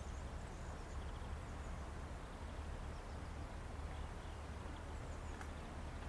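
Steady low rumble of outdoor background noise, with a few faint high chirps.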